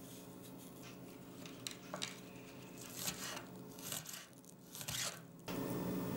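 Kitchen knife cutting spring onion stalks on a wooden cutting board: a series of short, crisp, irregular cuts.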